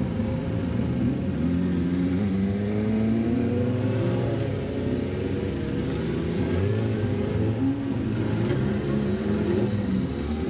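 Motorcycle engine accelerating hard on a top-speed run, its pitch climbing and dropping back several times as it shifts up through the gears.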